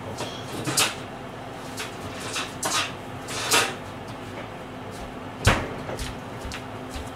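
Kitchen handling clatter: a scattering of sharp knocks and clacks, about half a dozen, as things are picked up and set down and a cupboard is worked, over a steady low hum.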